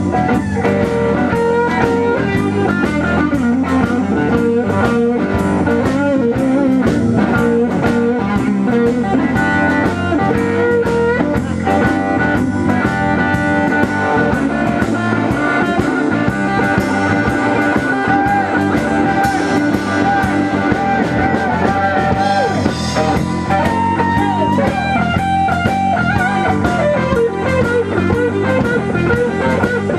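Live blues band playing an instrumental passage: a semi-hollow electric guitar plays lead lines with some bent notes over bass guitar and a drum kit.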